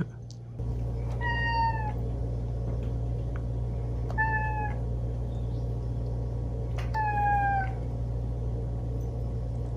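Domestic cat meowing three times, a few seconds apart, each call sliding slightly down in pitch, over a steady low hum that sets in about half a second in.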